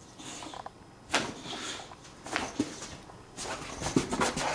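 A boxer dog's paws and claws scuffling and tapping on the floor as it pounces after a laser dot: scattered sharp scrapes, then a quick run of taps near the end.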